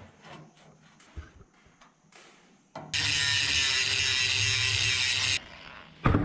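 Angle grinder with a thin cut-off disc cutting a steel bar held in a vise: a loud, steady cut of about two and a half seconds, starting and stopping abruptly. A few light clicks come before it, and a sharp knock near the end.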